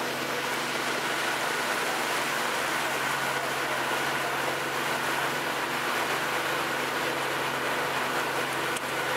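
Boat engine running steadily underway, with water rushing past the hull and wind noise, and a fainter steady high tone on top.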